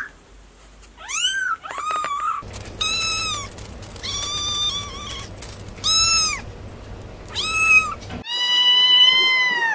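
Kittens meowing: about seven separate high-pitched mews and meows, the first thin ones from a newborn kitten, ending with one long, steady meow.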